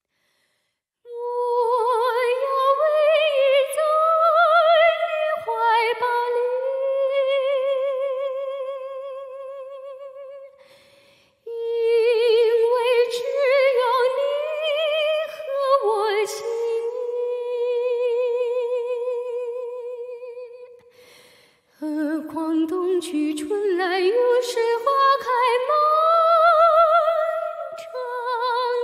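A woman's voice singing or humming a slow melody without accompaniment, in three long phrases with a trembling vibrato on the held notes. It enters about a second in, with short breaks about eleven and twenty-one seconds in.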